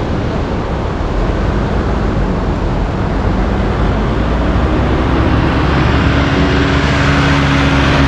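A motor vehicle's engine drawing near on the road, its steady hum growing louder through the second half, under heavy wind noise on the microphone.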